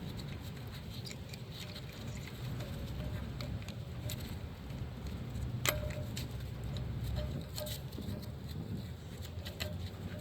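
Light metallic clicks and taps of tools and hardware being handled during wheel and brake work, with one sharper clink about six seconds in that rings briefly, over a steady low rumble.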